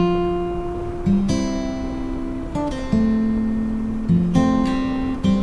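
Outro music: an acoustic guitar strumming chords, a new chord struck about every second and left to ring out.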